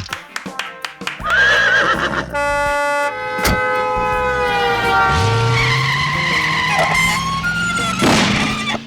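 A rapid sequence of short, unrelated sound effects cut one after another. It opens with a run of clicks, then a warbling tone, several held pitched sounds and a single sharp crack about three and a half seconds in, then a low tone that rises from about five seconds in.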